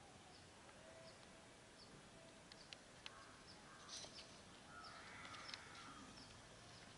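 Near silence with faint outdoor bird sounds: a short high chirp repeating a little more often than once a second, a few light clicks, and a harsher bird call about five seconds in.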